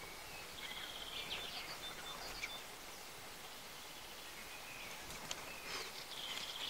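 Small birds calling: short, high chirps and whistles, with a cluster about a second in and more near the end, over a faint steady outdoor background.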